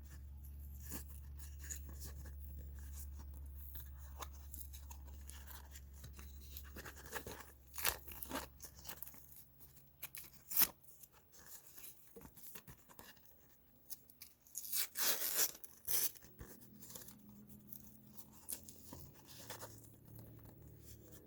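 Plastic blister packaging and its card backing being torn and pried at by hand, with irregular crackles and sharp snaps that are loudest about fifteen seconds in.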